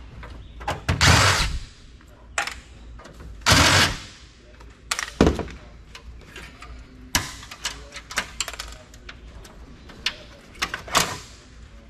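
Clicks, knocks and clatter of metal and plastic computer parts being handled as a PC tower is taken apart by hand, with a few louder scraping rushes.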